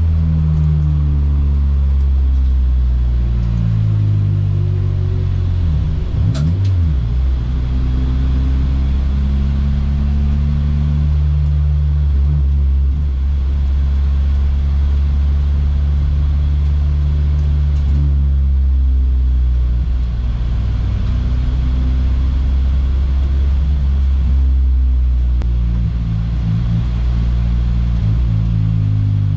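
Honda Accord Euro race car's K24 four-cylinder heard from inside the cabin, its note falling as the car slows off the track, with a brief break in the note about six seconds in. It then runs at low, steady revs as the car rolls down pit lane.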